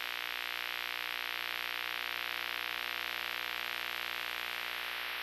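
Steady hiss of video static with a low electrical hum beneath it: a VHS tape-glitch sound effect.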